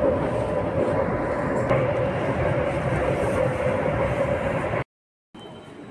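Delhi Metro airport-line train running, heard from inside the carriage: a steady rumble with a steady mid-pitched whine. It cuts off abruptly about five seconds in, and a much quieter hall ambience follows.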